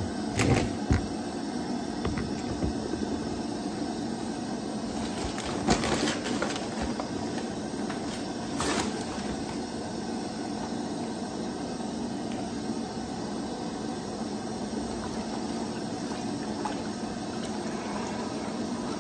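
Sugar syrup being stirred in a pot for bee fondant, with a few short knocks of the stirrer against the pot over a steady rushing background noise.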